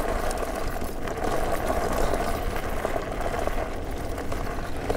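Electric off-road scooter ridden over a rough dirt trail: a steady rumble of the tyres and suspension with rattling over the bumps.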